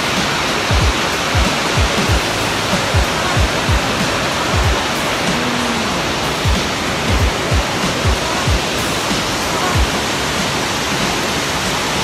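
Steady rushing roar of Coomera Falls, a tall waterfall plunging into a forested gorge, with frequent short low thumps on the phone's microphone.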